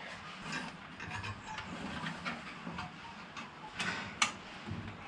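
Small scattered clicks and taps of hinge hardware, a nut and bolt, being fitted by hand, with two sharper clicks near the end.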